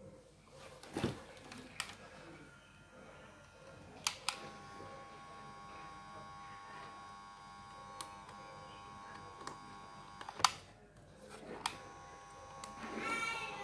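A transformer soldering gun buzzing steadily while its tip heats on a circuit board's solder joints. It switches on with a click about four seconds in, buzzes for about six seconds, stops with a click, then clicks on and buzzes again about a second later. A few light handling clicks come before it.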